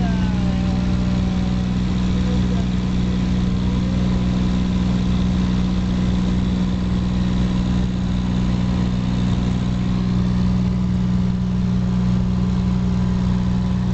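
Single-engine Cessna's piston engine and propeller running steadily in flight, heard from inside the cabin as an even, loud drone with a strong low hum.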